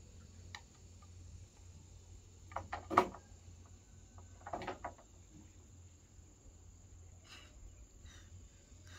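A few knocks: a quick cluster ending in one sharp, loud knock about three seconds in, then another short cluster of lighter knocks a second and a half later, over a faint low hum.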